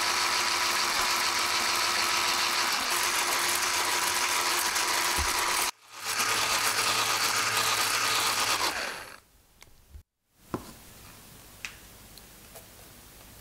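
Electric hand mixer beating a batter of egg yolks, sugar and lime juice in a glass bowl, its motor running steadily with a constant whine. It drops out briefly, runs again, then winds down and stops about two-thirds of the way in; after that come only a few faint clicks.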